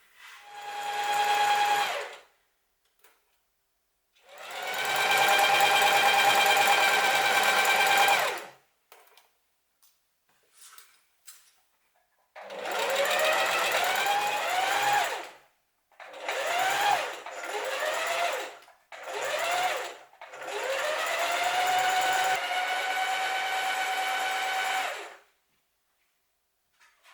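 Electric sewing machine stitching in about seven separate runs, its motor whine rising in pitch as it speeds up at the start of each run and stopping between them. The runs in the middle are short stops and starts, and the last one is the longest.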